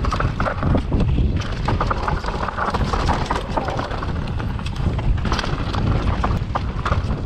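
Enduro mountain bike riding fast down a rough trail: the frame, chain and tyres clatter and rattle over the ground, with many sharp knocks over a steady low rumble.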